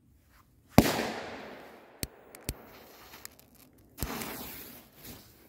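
Two Viper firecrackers exploding about three seconds apart. Each is a sharp bang with a long echoing decay, and the first is the louder. A few small sharp clicks come between them.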